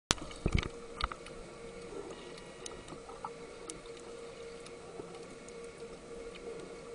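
Underwater ambience picked up through a camera underwater: a steady hum with a constant mid-pitched tone, a few sharp knocks in the first second, then scattered faint clicks and ticks.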